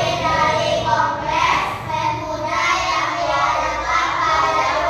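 Children singing, with a continuous, gliding melody carried by their voices.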